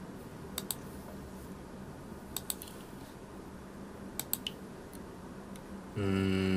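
Three pairs of faint, sharp computer mouse clicks spread over several seconds, then near the end a person's short held hum with a steady pitch, under a second long and louder than the clicks.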